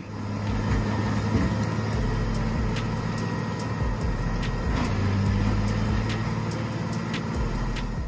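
Morbark 3400XT Wood Hog tracked horizontal grinder running under load as logs are fed in: a steady heavy engine drone with occasional sharp knocks.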